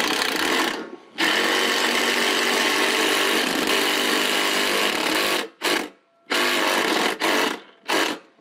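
Power drill driving a long gutter screw through its bushing into the fascia: a short run, then a steady run of about four seconds, then three short pulses near the end as the screw is driven home.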